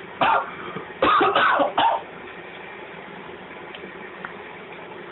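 A man coughing and clearing his throat: one short burst, then three harsh ones close together about a second in, then nothing more. They are his reaction to the burn of a spoonful of extremely hot sauce.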